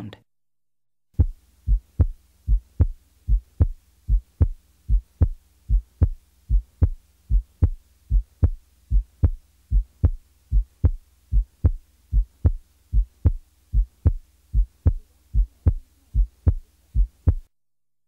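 Auscultated heart sounds: a soft first heart sound followed by a louder second heart sound, lub-dub in regular pairs, giving the impression of going up the musical scale. They start about a second in and stop shortly before the end.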